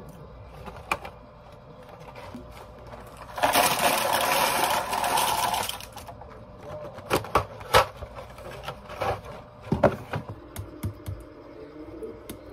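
Cardboard reagent kit box and its wrapped contents rustling loudly for about two seconds as they are shaken out over a plastic basket, followed by a string of sharp clicks and knocks as the items are handled.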